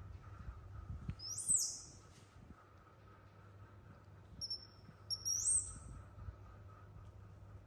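High-pitched whistle-like animal calls that sweep upward in pitch, one call about a second and a half in and a short run of calls around five seconds in, over a faint steady hum.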